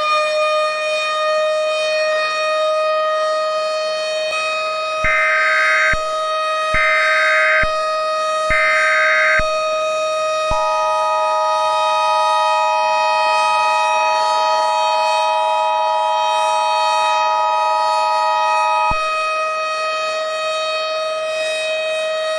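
Civil defense siren wailing at a steady pitch after rising at the start. About five seconds in, three short one-second bursts of Emergency Alert System header data tones sound over it. These are followed by the steady two-tone EAS attention signal for about eight seconds.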